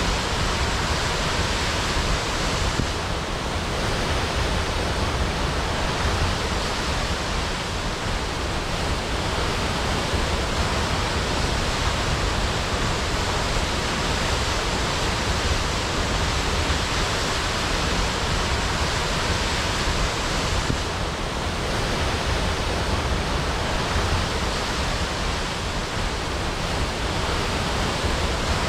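Waterfall crashing: a steady, dense rush of falling water.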